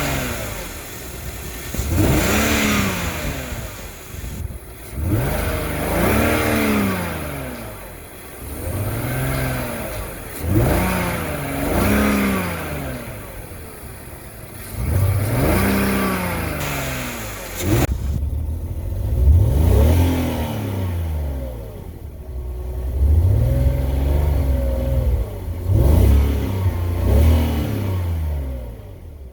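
BMW 330Ci's inline-six engine revved again and again, its pitch rising and falling about every two seconds and settling back toward idle between throttle blips; the car has a rough idle.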